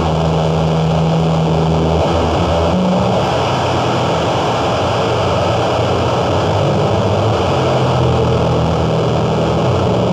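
Live harsh noise music: a loud, dense wall of distorted noise over low droning tones that shift in pitch every second or two.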